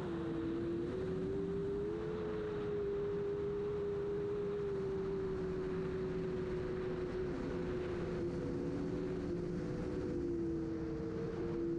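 FPV quadcopter's brushless motors and propellers whining in flight, heard from the onboard camera: several close steady tones that drift slightly in pitch, dipping at the start and near the end, over a steady hiss of wind.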